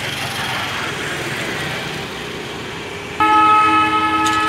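Horn of a Scania coach sounding one long, steady chord of several notes, starting about three seconds in, over street traffic noise.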